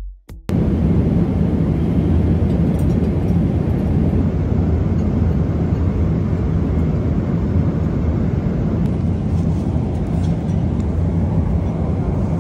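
Steady low drone of an airliner cabin in flight: jet engine and airflow noise heard from a passenger seat, starting about half a second in.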